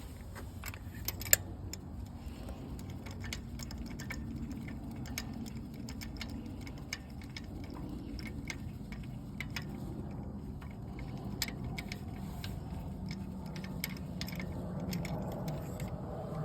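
Scattered light metallic clicks and clinks of hand tools and a spark plug being handled while the spark plugs are removed, with one sharper click about a second in, over a low steady background hum.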